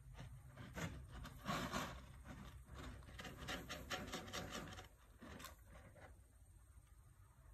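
Kitten scratching and pawing at granular cat litter in its litter tray to cover its waste: a run of quick, faint scratchy rakes, loudest about a second and a half in and dying away about five seconds in.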